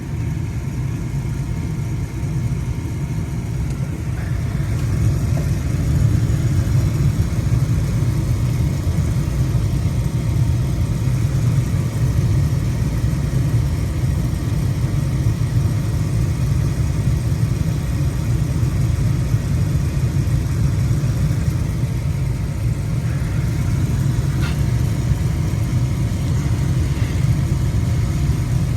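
1997 Carrier LP-gas furnace running with its burners lit: a steady low rumble that grows louder about five seconds in.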